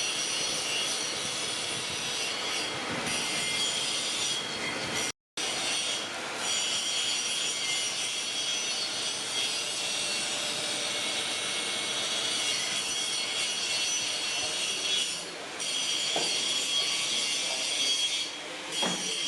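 Continuous scraping, rubbing noise with steady high ringing tones over it, cutting out for a moment about five seconds in.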